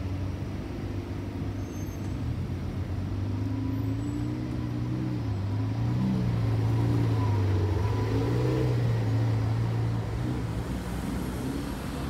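Lamborghini Aventador SVJ's V12 engine idling in slow city traffic: a steady low note that swells slightly through the middle, over general street traffic.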